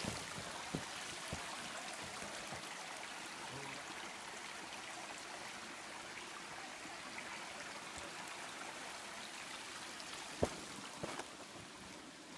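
Small forest creek running over rocks, a steady rush of water. A couple of sharp knocks come about ten seconds in.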